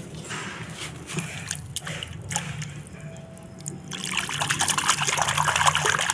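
Water trickling and splashing as a mud-covered plastic toy animal is washed by hand, with small knocks of the toy, becoming a louder, steadier rush of running water about four seconds in.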